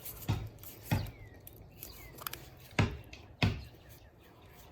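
Plastic glue sticks being handled, giving four sharp clicks and knocks in two pairs.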